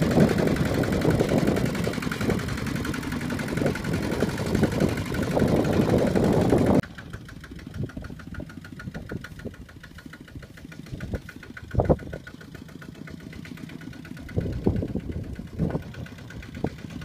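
Two-wheel walking tractor's single-cylinder diesel engine running under load, loud and close, with a fast, even pulse. About seven seconds in the sound drops abruptly to a fainter, distant running with occasional louder thumps as the tractor works through mud.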